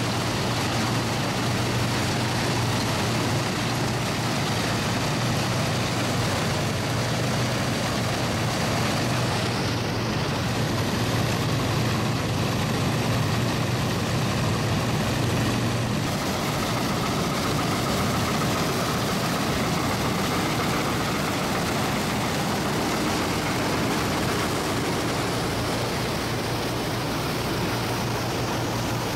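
Vintage Allis-Chalmers self-propelled combine harvesting wheat: its engine and threshing machinery running steadily under load, with a steady low hum. The sound changes abruptly about sixteen seconds in.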